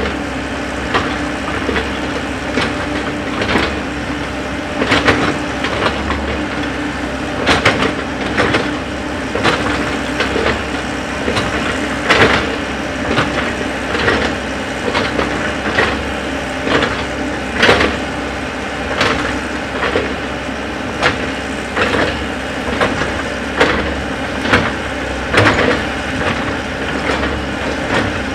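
Komatsu wheeled excavator's diesel engine running steadily under digging load, while its steel bucket scrapes into earth and rock with frequent irregular sharp knocks and crunches of stone.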